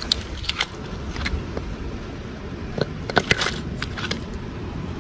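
Beach stones clicking and knocking together as a heavy, rust-coloured rock is pulled up by hand from among the cobbles, a few clicks early and a denser clatter about three seconds in, over a steady low rumble.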